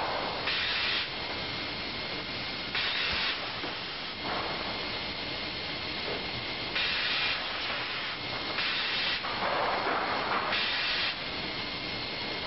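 Marzica CS200A semi-automatic optimizing cross-cut saw running with a steady faint whine, broken several times by short hissing bursts of about half a second as boards are fed through and cut.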